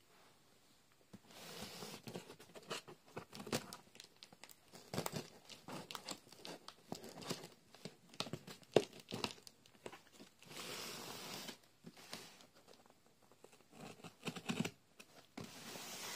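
Cardboard box being opened with scissors: packing tape cut and ripped off, with the cardboard flaps scraping and crinkling. Three longer rasps of tape tearing come about a second in, around ten seconds in and at the end, among many short clicks and scrapes.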